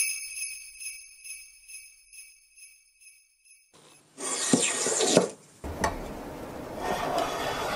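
A high, tinkling chime rings and fades over the first few seconds. Then a hand plane shaves a split-bamboo strip held in a steel planing form for a rod: one rasping stroke about four seconds in, followed by further scraping.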